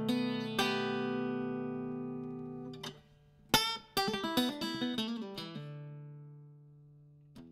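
Slow plucked-string instrumental music. A chord rings and fades, a strum about three and a half seconds in is followed by a short run of picked notes, and near the end a long note dies away.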